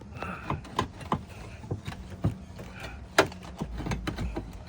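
Irregular knocks, clicks and scraping of a glued-down roof tile being pried and worked loose, with one sharp knock about three seconds in.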